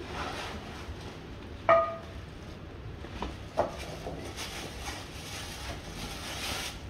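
Bubble wrap and plastic rustling as a cast iron pan is unpacked, with one sharp metallic clank and a short ring a little under two seconds in, and a smaller knock about three and a half seconds in.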